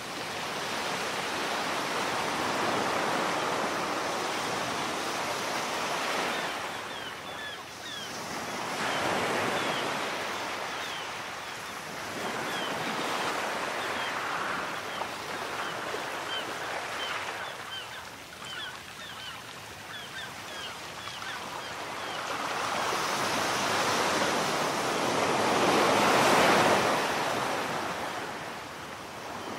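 Small sea waves breaking on a sandy beach and washing up the shore, the surf rising and falling in surges a few seconds apart, the loudest near the end.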